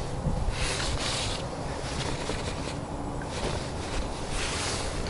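Wind rumbling on the microphone, with three soft swells of hiss from small waves lapping against an inflatable boat.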